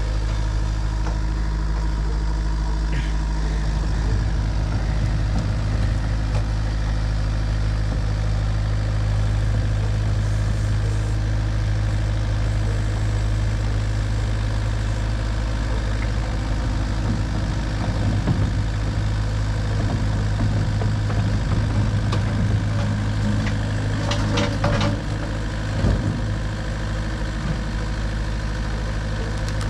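Engine idling steadily with a low, even hum, with a few knocks and rattles near the end.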